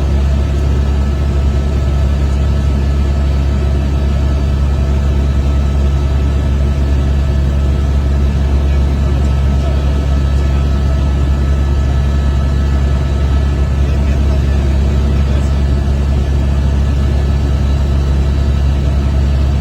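Helicopter noise heard from inside the cabin: a loud, steady low drone from the rotors and engine, with a thin high whine from the turbine and gearbox running over it.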